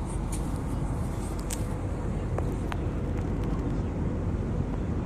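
Steady cabin noise of an airliner in cruise: a constant low rumble and rush from the engines and the airflow, with a few faint clicks.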